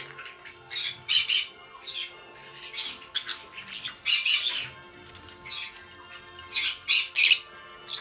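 Green-cheeked conures (pineapple colour morph) giving repeated short, harsh squawks, loudest about a second in, around four seconds and near the end, over background music.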